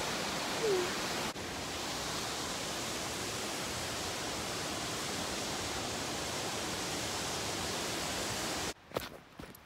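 Waterfall rushing: a loud, steady wash of falling water. It cuts off abruptly near the end, leaving a much quieter background with a few faint knocks.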